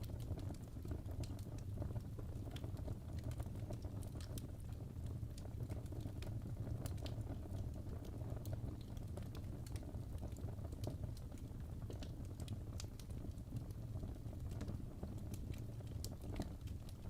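Wood fire burning in a fireplace: logs crackling and popping in many small irregular snaps over a steady low rumble of flame.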